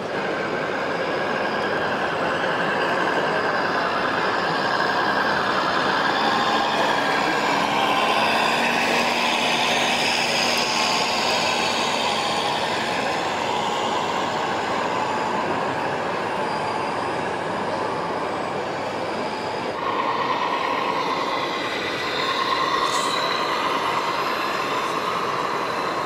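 Small electric RC model vehicles running: a steady whir and whine of their motors and gears, changing in tone about 20 seconds in.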